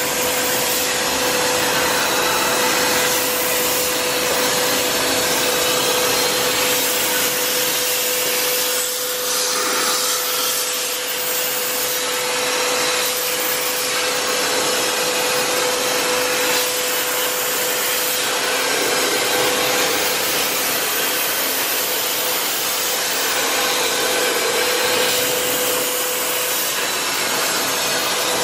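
Kuraki AKB-13 CNC horizontal boring mill running: a steady whirring hiss with a constant hum-like tone underneath.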